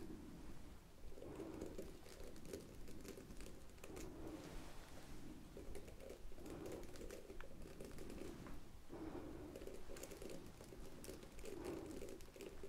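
Quiet ASMR hand sounds close to the microphone: soft rubbing strokes every second or two, with light taps and small clicks.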